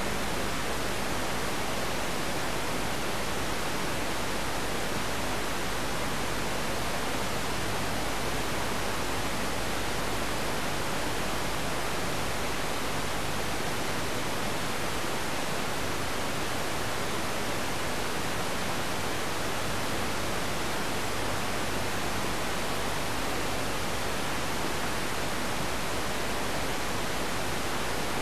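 Steady hiss of static from an analog TV receiver on a weak, distant signal, with no programme sound coming through: the sound was lost to a wrong adjustment of the TV. A faint low hum lies under the hiss.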